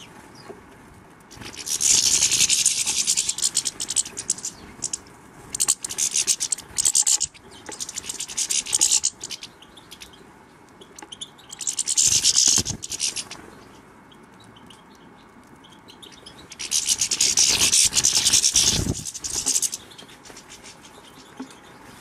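European goldfinches at a tube seed feeder: five loud, scratchy bursts of fluttering and twittering a few seconds apart, one about a second and a half in, the longest near the end.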